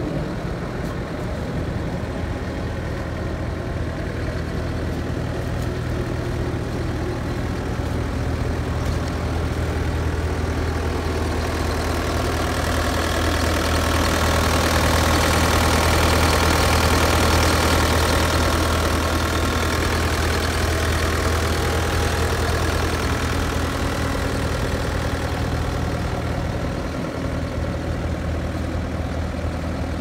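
Bobcat T300 skid steer's Kubota turbo-diesel engine idling steadily, louder for several seconds around the middle with the engine compartment open.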